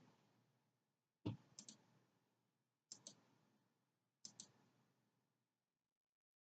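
Computer mouse clicking in a quiet room: a soft thump about a second in, then three pairs of quick clicks a little over a second apart.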